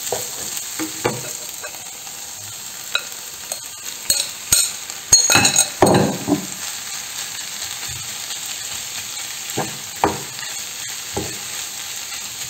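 Diced onion and peppers sizzling in oil in a frying pan, stirred with a wooden spatula that scrapes and knocks against the pan. Around the middle, raw spiced chicken pieces go into the pan and there is a louder stretch of sizzling and stirring.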